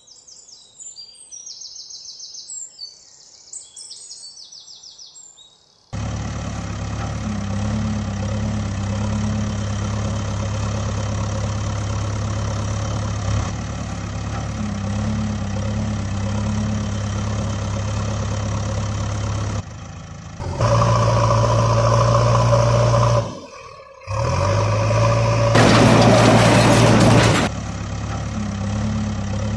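Birds chirping faintly, then from about six seconds in a heavy-vehicle engine idling with a steady low hum. Its note changes about twenty seconds in, it cuts out briefly, and a loud rushing hiss lasts about a second and a half near the end.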